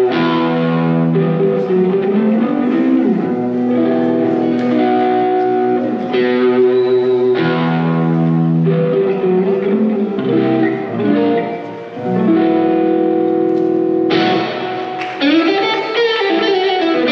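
Solo electric guitar playing slow, ringing chords and single-note lines, each chord left to sustain and die away; new chords are struck about seven seconds in and again about fourteen seconds in, followed by bent, wavering notes near the end.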